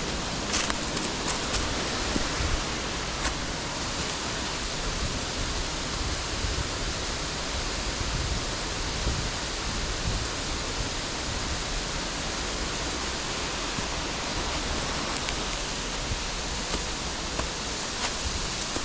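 Steady rush of a waterfall: an even, unbroken hiss of falling water, with a few faint clicks over it.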